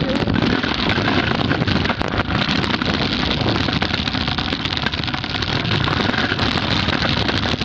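Steady, loud rumbling noise of a scooter rolling fast over pavement, with wind buffeting the phone's microphone.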